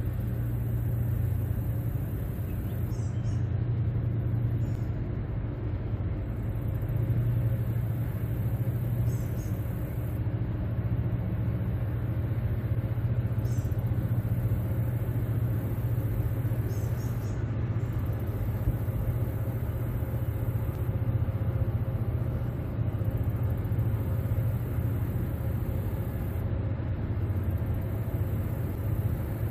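Steady low rumble of a towboat's diesel engines working under load while pushing a tow of barges, with a constant deep hum.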